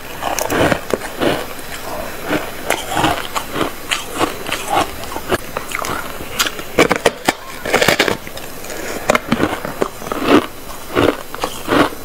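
Biting and chewing a slab of frosty white ice: repeated crisp crunches at an uneven pace, a few each second, with a denser run of crunches a little past the middle.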